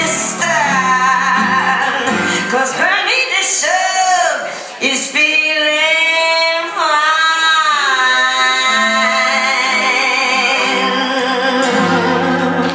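Music: a woman's voice singing long held notes that slide up and down, over a backing track.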